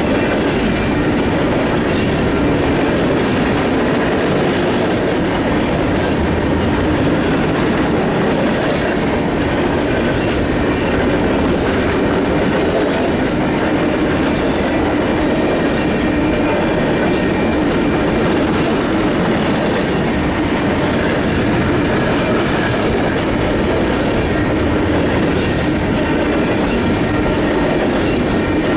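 Union Pacific train cars rolling steadily past, their wheels clicking over the rail joints, with a faint thin wheel squeal.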